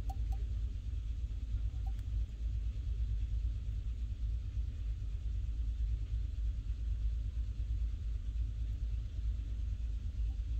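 Steady low rumble under a faint even hiss, with a few faint light clicks near the start.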